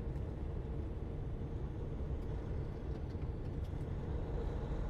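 Steady low rumble of a semi truck's engine and road noise while driving, with a faint steady hum.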